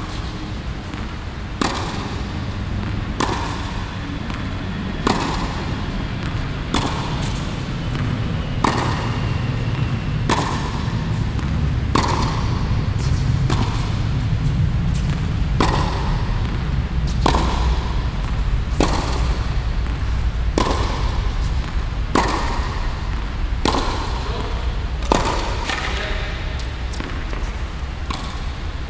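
Tennis balls struck by rackets in steady hitting, a sharp pop about every one and a half to two seconds, each ringing briefly in the large indoor hall, over a steady low rumble.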